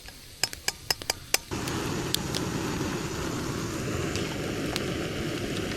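A few sharp clicks, then about a second and a half in the eggs hit hot butter in a pan over a wood fire and start sizzling steadily.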